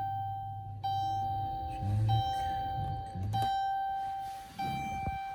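Dodge Grand Caravan's dashboard warning chime dinging repeatedly, one clear ring a little over a second apart, about four times, with the ignition switched on.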